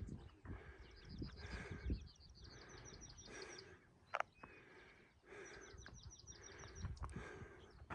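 A songbird singing short, fast, high-pitched trills, each a quick run of chirps, repeated several times, over low thumps and rustling of movement on the trail, with one sharp click about four seconds in.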